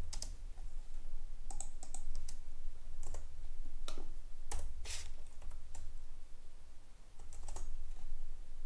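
Computer keyboard being typed on: short runs of key clicks with pauses between them, over a low steady hum.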